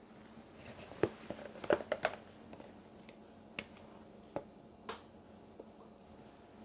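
Small sharp clicks and taps of a plastic pouring jug and spatula being picked up and knocked lightly while chocolate mousse is spooned into a silicone mould: a quick cluster about a second in, then a few single taps later.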